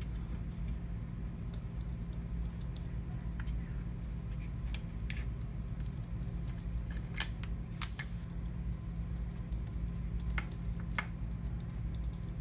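Faint scattered clicks of a hand screwdriver turning out small screws and of the tool's housing being handled, a few seconds apart, over a steady low hum.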